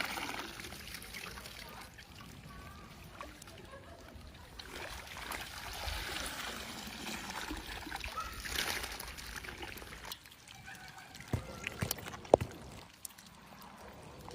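Water trickling and splashing, with a few sharp knocks late on, the loudest about twelve seconds in.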